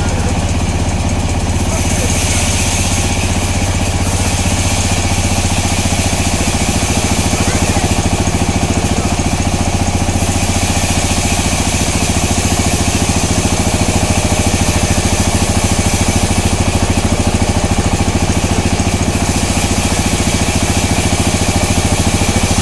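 Sawmill machinery running steadily with a low, even drone, and a higher hiss that swells and fades several times as the saw works through the log.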